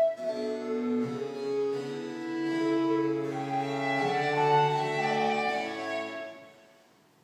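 Baroque chamber ensemble of violin, wooden recorder, cello and harpsichord playing sustained notes; the phrase ends about six seconds in and dies away into a short pause.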